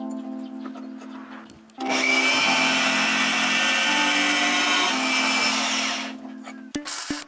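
Angle grinder cutting metal: a loud, harsh grinding hiss starts abruptly about two seconds in, runs for about four seconds and then dies away, with background music underneath.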